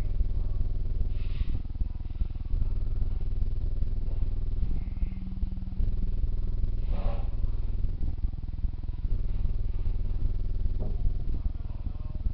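A steady, loud low rumble with a fast flutter, like a motor running. Two short hisses sound over it, one about a second in and a slightly longer one about seven seconds in.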